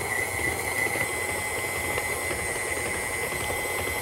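KitchenAid Classic stand mixer running steadily with a constant high whine, its flat beater mixing softened cream cheese in the steel bowl.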